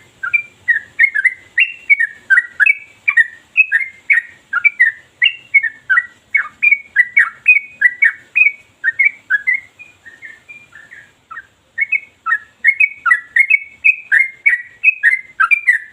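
Yellow-vented bulbul (trucukan) singing a long, unbroken run of quick, sweeping notes, about three a second. The song briefly goes softer and sparser about ten seconds in, then picks up again at full strength.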